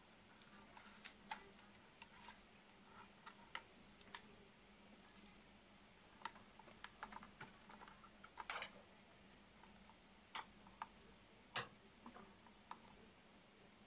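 Faint, scattered clicks and taps of hard plastic parts being handled, as a rubber timing belt and toothed gear drum are fitted back onto a DIY filament winder, with a short rustling scrape about two-thirds of the way through. A faint steady hum lies underneath.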